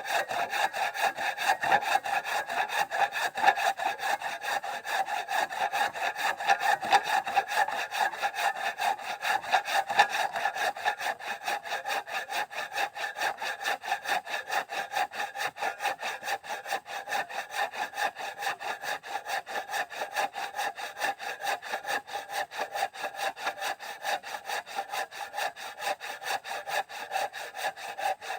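Hand saw cutting through wood with quick, even back-and-forth strokes.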